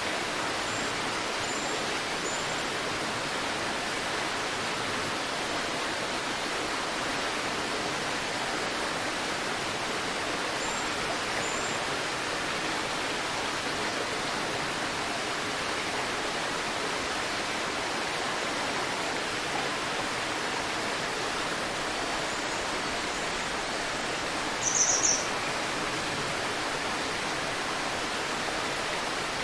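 Steady rushing of a river. Faint high bird chirps come through now and then: three short ones near the start, two around eleven seconds, and a louder quick burst of chirps about 25 seconds in.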